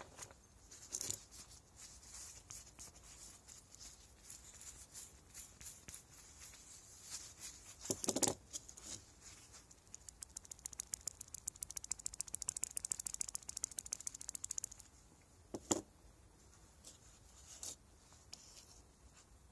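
Engine ball bearings handled by hand on a workbench, with small clicks and a couple of sharper knocks. About ten seconds in, a bearing is spun by hand and gives several seconds of fast, even ticking rattle: the bearing has too much play.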